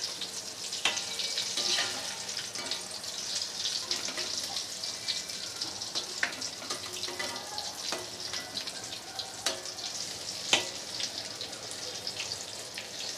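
Battered brinjal fritters deep-frying in hot oil in a kadai, making a steady sizzle, with a few short clicks of a slotted spoon against the pan.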